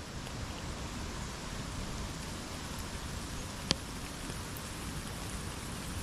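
A steady, even hiss of noise, with one sharp click a little past halfway.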